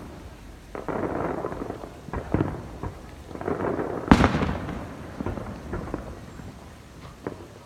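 Aerial fireworks bursting: a handful of booms, the sharpest about four seconds in, with stretches of crackling between them.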